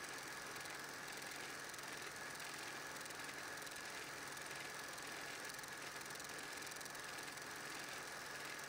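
An 8mm film projector running steadily, giving a hiss with a low hum, a high whine and a faint regular mechanical pulsing. No sound from the filmed scene itself; the home movie is silent.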